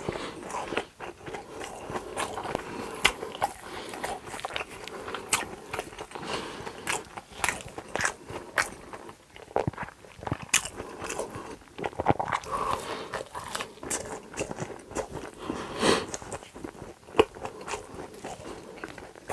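Close-miked eating: crunchy bites and chewing, with many irregular sharp crackles.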